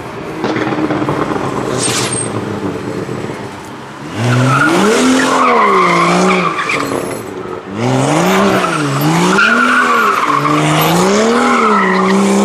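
Car drifting: its engine revs rise and fall over and over, starting about four seconds in, with tyres squealing as it slides.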